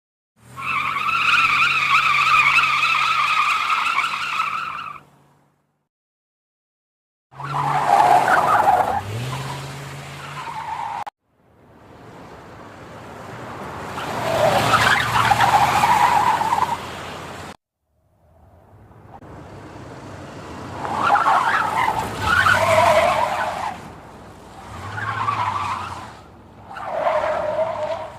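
Car tire skid sound effects, four separate takes split by short silences. The first is a steady high squeal of two held tones over a low engine hum. The others are screeches that waver in pitch and swell and fade, and the last surges several times before stopping.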